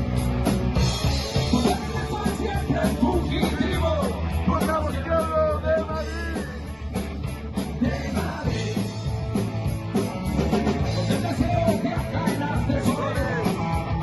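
Live rock band playing with drum kit, bass and guitars, the hi-hat keeping an even tick throughout. A lead melody bends up and down in pitch through the middle.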